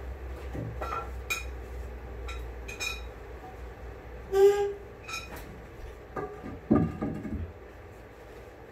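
Workshop handling sounds as a fibreglass boat hull is worked on: scattered clicks and clinks, a short ringing tone about four and a half seconds in, and a few heavier thuds near seven seconds, over a steady low hum.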